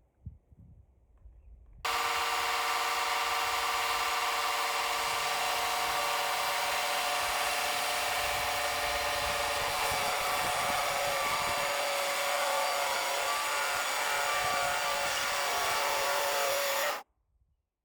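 Sawmill blade cutting through a log: a loud, steady sawing whine with a hiss, starting suddenly about two seconds in and cutting off sharply near the end.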